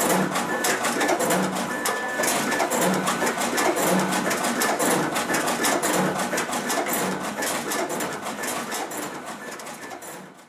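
SCCP B slitter/cutter/creaser with its vacuum feeder running, pulling sheets through about one a second with a busy clicking and rattling over a steady machine hum. The sound fades out over the last couple of seconds.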